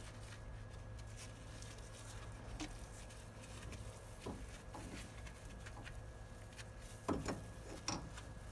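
Faint handling sounds of string being tied around a removed brake caliper to hang it up: small clicks and taps, then a few light knocks about seven seconds in. A low steady hum underneath.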